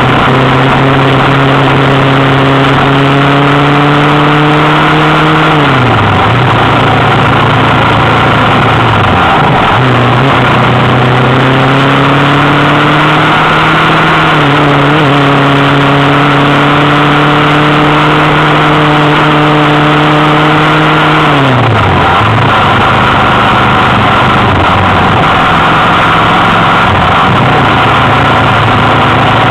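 Motorcycle engine running at steady road speed under a constant rush of wind. Its note drops as the throttle is closed about six seconds in, rises again around ten seconds, holds steady, and drops again a little after twenty seconds.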